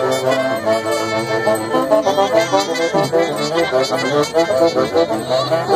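Live band playing a lively Negritos dance tune, with saxophone, trumpet and violin carrying a quick-moving melody over a steady beat.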